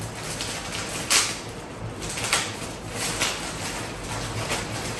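Plastic poly mailer bag rustling and crinkling as it is pulled open and handled, with a few sharp crackles, the loudest about a second in.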